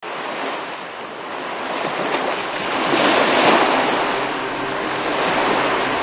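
Ocean surf breaking and washing up a beach: a steady rush that swells to its loudest about halfway through, then eases. Faint music tones come in near the end.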